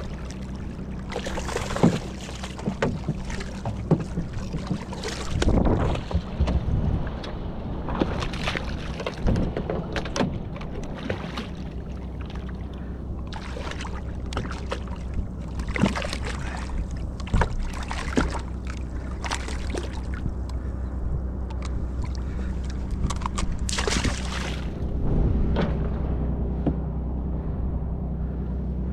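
Boat's outboard motor idling steadily under water splashing at the hull, with frequent sharp clicks and knocks as the fish is unhooked and the tackle handled.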